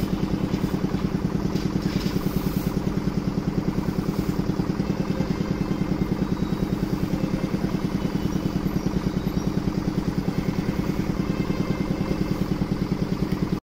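A vehicle engine idling steadily, with a rapid, even pulse.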